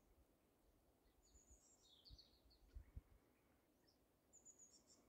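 Faint, high-pitched songbird chirps in two short bouts, about a second in and again near the end, with a few soft low thumps in the middle.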